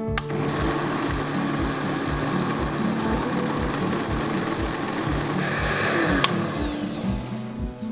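Electric countertop blender running, pureeing raw peppers, onion and garlic into a thick sauce. The motor starts just after the beginning, runs steadily, gets brighter about five seconds in and stops near the end.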